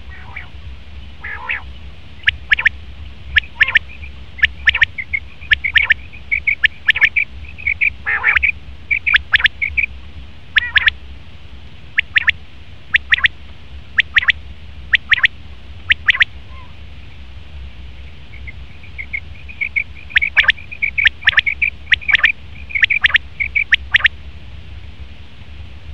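Male common quail calling over and over: short sharp notes repeated about once a second, with runs of quicker, softer notes between them, over a steady low hum.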